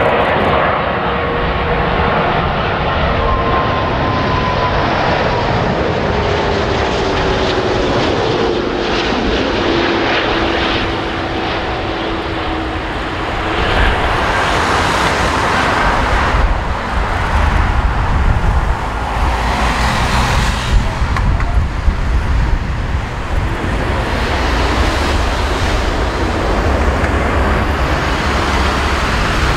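Airbus A340-600's four Rolls-Royce Trent 500 engines on final approach, a whine sliding down in pitch as the jet passes close by. After touchdown about halfway through, a louder, deeper rumble builds as the engines go to reverse thrust on the landing roll.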